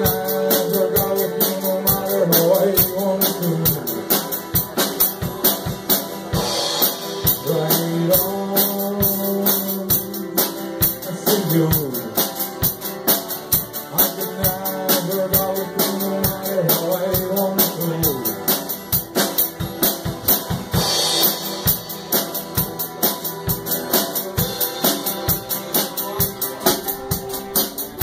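A live Celtic rock band playing: a steady drum-kit beat under electric and acoustic guitars, with a held melody line that bends in pitch.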